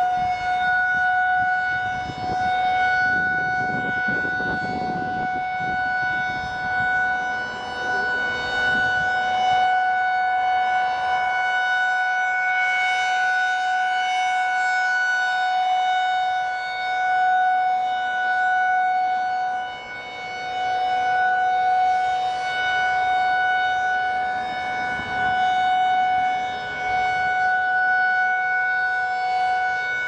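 Federal Signal 2001-SRN rotating tornado siren sounding its steady alert signal: one unbroken tone held at a constant pitch. The loudness swells and fades roughly every six seconds as the turning horn sweeps past.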